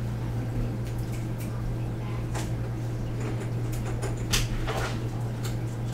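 Steady low electrical hum of the recording setup, with a few faint scattered clicks.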